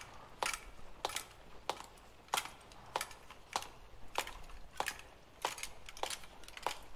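Evenly paced footsteps of boots on a stone floor at a slow walk, each step a sharp click, a little more than one and a half steps a second.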